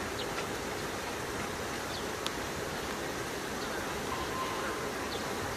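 Steady, even outdoor background noise, with a few faint short high chirps and one sharp click a little over two seconds in.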